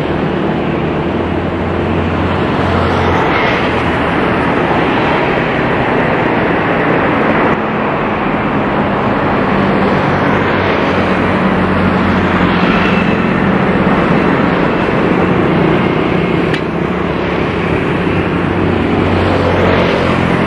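Twin jet engines of a Citilink Airbus A320 airliner running at taxi power: a steady rush of noise with a low hum underneath.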